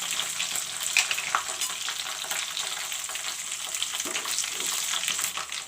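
Whole spices (cumin, dry red chilies, bay leaves and whole garam masala) sizzling in hot mustard oil in a pan, with scattered sharp crackles.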